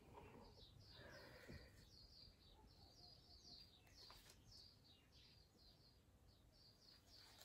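Near silence, with faint, repeated bird chirps in the background.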